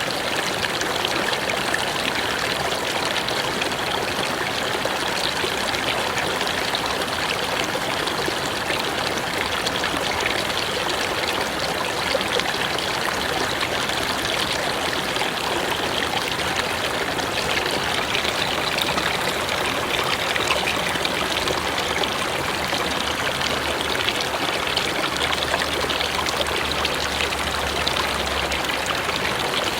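A mountain river running over rocks in a steady, rushing flow of water.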